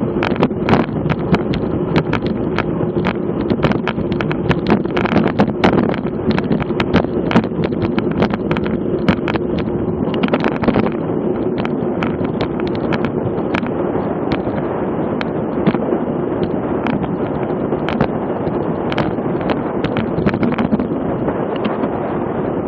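Wind rushing over the microphone of a camera on a road bike at racing speed, a steady noise with a low hum. Frequent irregular clicks and knocks sound over it, thickest in the first half.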